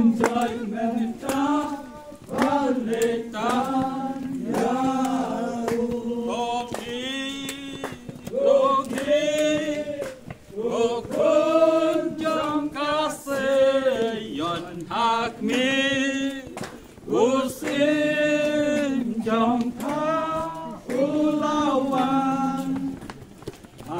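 A group of people singing together without instruments, a hymn-like song in held notes and phrases, with short pauses between lines.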